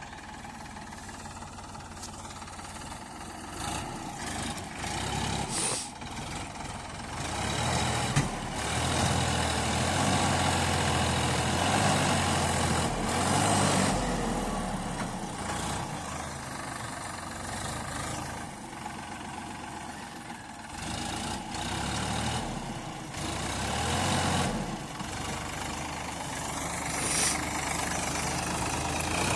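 Diesel engines of a JCB backhoe loader and a tractor at work, swelling and easing with the load, with a few sharp clanks.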